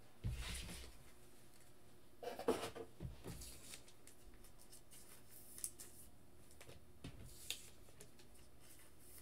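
Trading cards being handled and set down on the desk: a couple of brief rustles, then a few light clicks.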